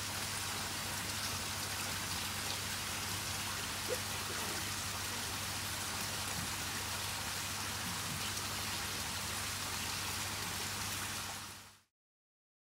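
Water in a koi bowl fizzing and pattering steadily, like rain on a surface, over a low steady hum. It fades out near the end.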